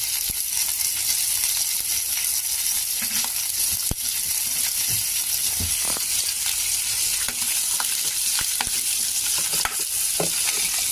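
Pork trotters pan-frying in hot oil with ginger: a steady high sizzle with scattered crackles and pops.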